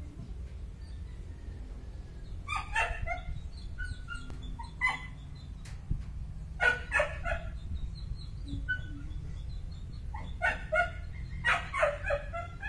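Short clusters of animal calls, a few quick calls each, coming every few seconds over a steady low rumble.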